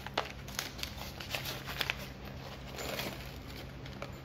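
Packing wrapping crinkling and small plastic mounting parts clicking as they are unwrapped and handled: a series of short crackles and ticks over a faint steady low hum.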